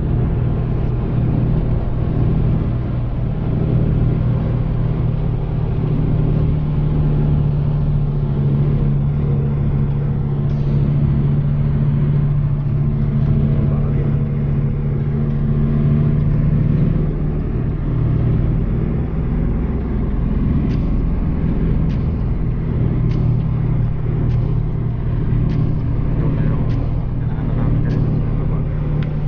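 Motor vehicle engine running steadily, heard as a continuous low drone, with a light tick repeating about once a second in the last third.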